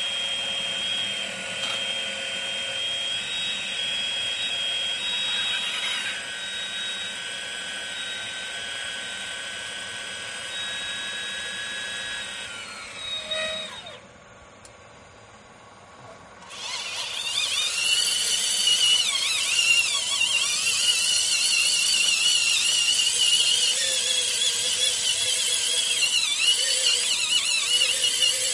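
Radio-controlled scale John Deere excavator's electric motors whining steadily as the arm and bucket work. About halfway through the whine stops for a couple of seconds, then starts again louder, its pitch wavering.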